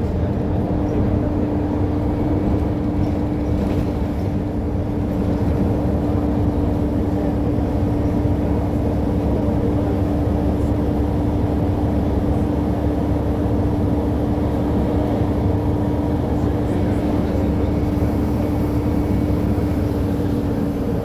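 Mercedes-Benz O500UA articulated bus running steadily, an even engine sound with one held whine that dips slightly at the very end.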